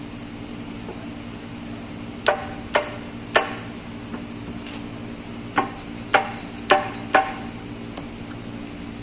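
Hammer blows on metal engine parts, seven sharp strikes with a short ring: three about half a second apart, a pause, then four more. A steady low hum runs underneath.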